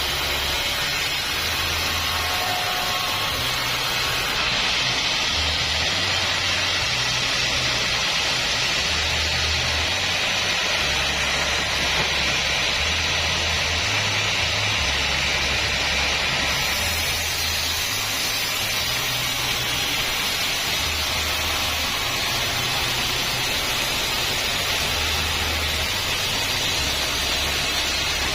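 Homemade band sawmill running steadily, its blade sawing through acacia wood with a continuous hissing whine. The sound shifts in tone for a stretch from about four seconds in until about seventeen seconds in.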